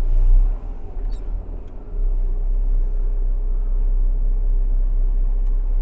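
Mack truck's diesel engine running, heard from inside the cab as the truck pulls forward a short way: a steady low rumble with an even hum. It eases off briefly from about half a second to two seconds in, with a couple of faint clicks, then holds steady.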